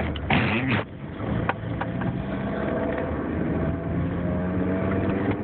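Car engine running steadily amid strong storm winds. A loud rushing blast comes about half a second in.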